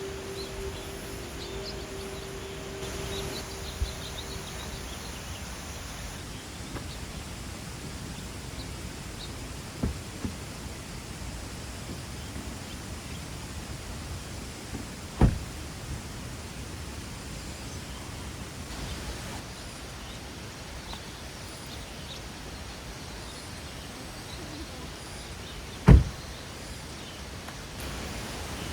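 Steady outdoor background hiss with a few sharp, short knocks; the loudest knock is near the end.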